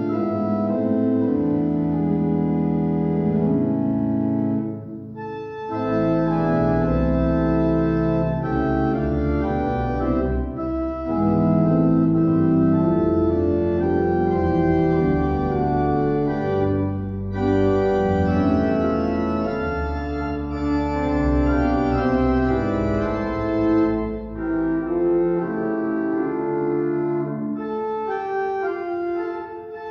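Hybrid church organ, a Viscount Envoy 350 console with Physis digital sound generation and J. W. Walker pipework, playing sustained full chords over a deep pedal bass. The sound breaks off briefly between phrases, first about five seconds in and then several more times.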